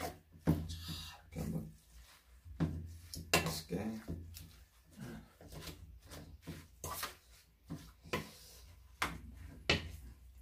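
A metal spoon clinking and scraping against a stainless steel mixing bowl in irregular strokes as rice and vegetables are stirred together.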